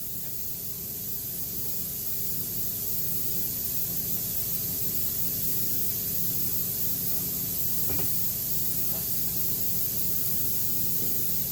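A steady hiss with a faint low hum under it, slowly growing a little louder over the first few seconds, with one faint click near the end.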